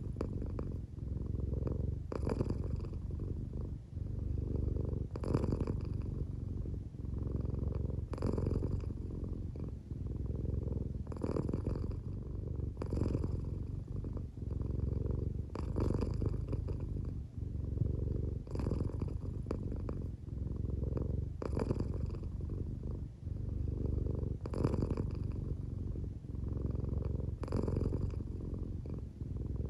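An American Shorthair cat purring steadily while half asleep, with a breathy swell about every three seconds. Her owner thinks the sound may be partly snoring.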